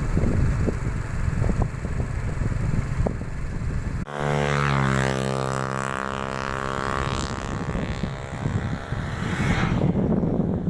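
Strong wind buffeting the microphone in gusts. About four seconds in, the sound cuts abruptly to a steady low drone with many overtones, like a motor, which lasts about five seconds before the wind buffeting returns.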